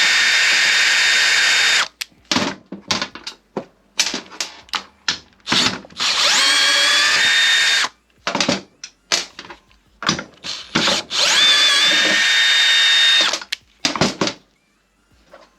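Power drill running in three bursts of about two seconds each, the second and third rising in pitch as the motor spins up, with short clicks and knocks of handling in between. It is unscrewing a bolt from a freshly set threaded rivet nut.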